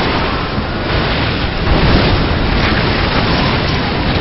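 Loud, rumbling rush of a stormy sea, with waves crashing and a surge about halfway through.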